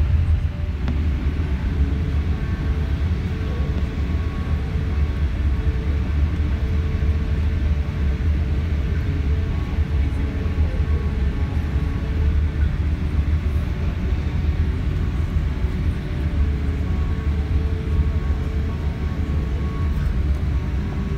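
Steady low rumble in the cabin of a Boeing 787-8 as it rolls and taxis after landing, its Rolls-Royce Trent 1000 engines at low power, with a few faint steady tones over the rumble.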